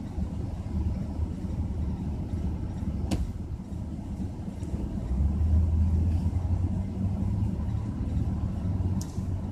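Car engine idling, heard from inside the car's cabin as a steady low rumble that swells a little about five seconds in. Two sharp ticks, about six seconds apart.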